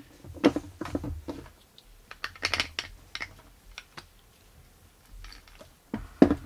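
Light clicks and knocks as the Metabo W 8-125 Quick angle grinder's gearbox cover, carrying the driven gear and spindle, is handled and fitted onto the gear housing. There is a cluster of clicks about two and a half seconds in and a sharper knock near the end.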